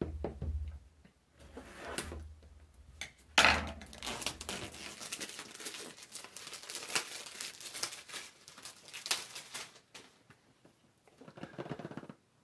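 Scissors slitting the seal of a cardboard product box, then the box being opened and handled: irregular rustling and scraping of cardboard and crinkling packaging, with a loud sharp sound about three and a half seconds in.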